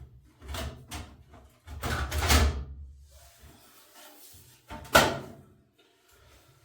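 Clunks and a scraping slide of metal washer panel parts being handled, with one sharp knock about five seconds in.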